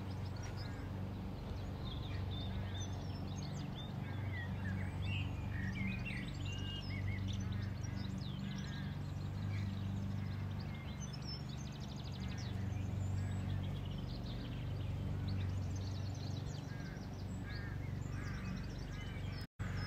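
Small birds singing and chirping, with many short calls and trills, over a steady low hum.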